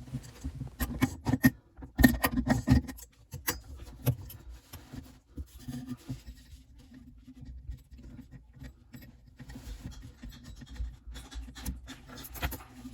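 Scattered clicks, knocks and scraping of hand tools and metal fittings being worked under a sink while faucet supply lines are disconnected. The knocks are loudest about two seconds in, followed by lighter rubbing and scratching.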